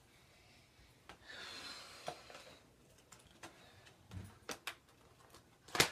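Handling noise from plugging an external USB hard drive into a laptop: a soft rustle, then a scatter of small clicks and taps, the sharpest just before the end.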